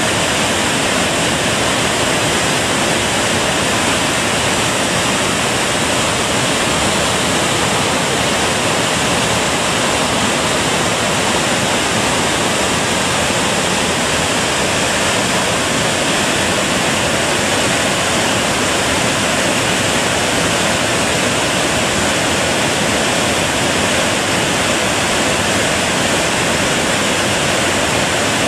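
Gooseberry Falls, a multi-tiered waterfall on the Gooseberry River, rushing steadily in full white-water flow: an even, unbroken sound of falling water.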